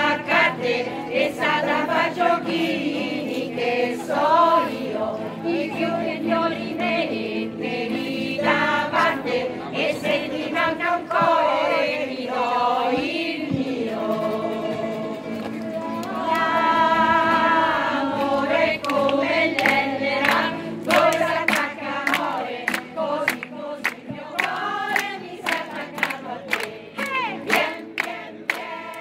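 Group of women singing a traditional Italian folk song in chorus, accompanied by an acoustic guitar. In the second half the song is joined by rhythmic hand clapping at about two claps a second.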